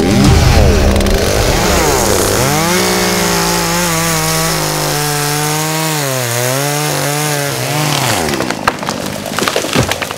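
Chainsaw cutting into a tree trunk, the engine pitch rising and falling as the chain bites into the wood. The engine stops about eight seconds in, followed by a few sharp cracks.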